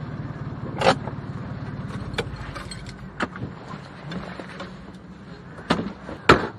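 A Fiat 500's small air-cooled two-cylinder engine running slowly at low revs, its rumble weakening about halfway through. Several sharp clicks and clunks sound over it, the loudest two near the end.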